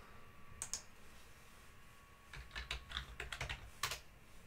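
Faint computer keyboard typing: a couple of keystrokes about half a second in, then a quick run of about eight keystrokes ending in a sharper press near the end, as a password is typed.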